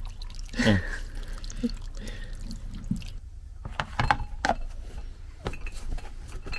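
Water running from a plastic barrel's tap into a bowl of acorns, topping up the water that leaches their tannins. Then a few sharp clicks and knocks as a plastic lid is pressed onto the bowl.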